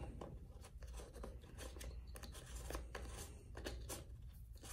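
Blue plastic end cap of a Wonder Roller paint roller being worked shut by hand, giving faint, scattered clicks and scrapes of plastic on plastic.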